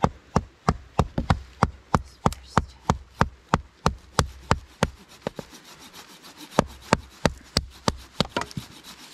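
Batoning firewood: a wooden baton knocking sharply on the back of a blade set in a log, about three knocks a second. The knocking pauses about five seconds in, then resumes more unevenly for a couple of seconds.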